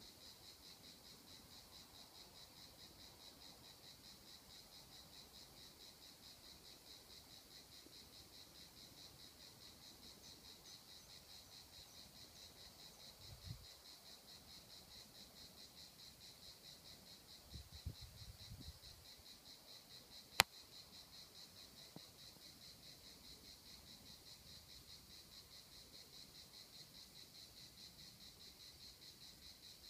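Steady chorus of insects: a continuous, finely pulsing high-pitched buzz. A few soft low thumps come about halfway through, and a single sharp click comes about twenty seconds in.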